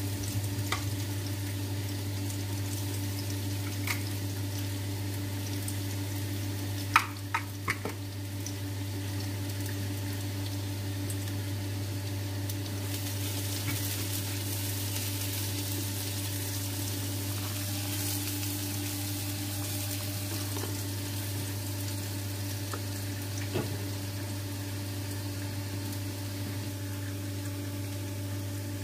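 Food sizzling in oil in a nonstick frying pan on a gas burner while a spatula stirs it. There are three sharp clicks of utensil on pan or jar about seven seconds in, and the sizzle grows louder from about thirteen seconds in, all over a steady low hum.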